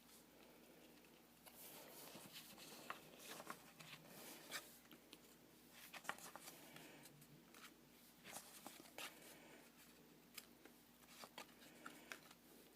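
Faint handling noise of trading cards and their pack wrapper being opened and flipped through: scattered soft rustles and light clicks.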